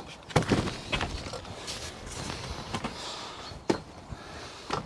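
Timber polytunnel door being taken off its frame: a series of separate wooden knocks and clunks, spread irregularly through a few seconds.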